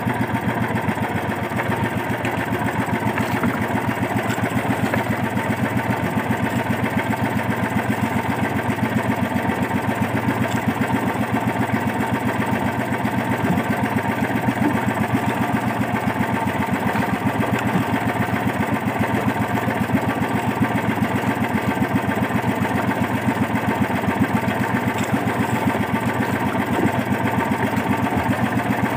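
Small engine of a motorized outrigger boat (bangka) running steadily at an even speed.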